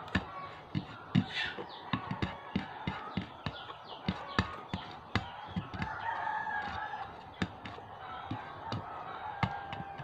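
Close-up eating sounds: many short wet clicks and smacks from chewing, with fingers scooping rice against the plate. A rooster crows in the background at about six seconds, one long call.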